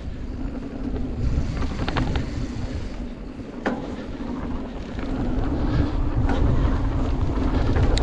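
Wind rushing over the camera microphone and tyre rumble from a mountain bike descending a dirt trail, with a few sharp knocks and rattles from the bike over bumps. The noise grows louder about five seconds in as speed builds.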